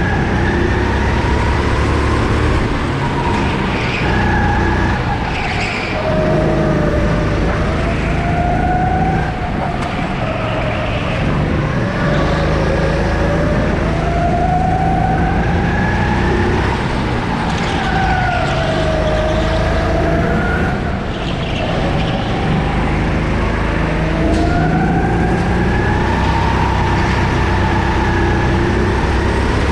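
Sodi 270 cc four-stroke kart engine heard onboard at racing pace, its pitch climbing as it accelerates and dropping as it lifts for the next corner, over and over every few seconds.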